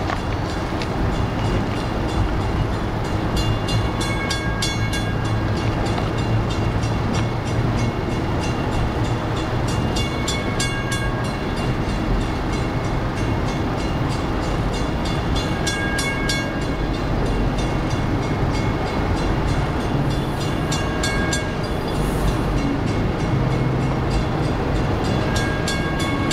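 Double-stack intermodal freight train rolling past: a steady rumble of wheels on rail, with a cluster of sharp wheel clicks and short metallic ringing tones about every six seconds as the cars go by.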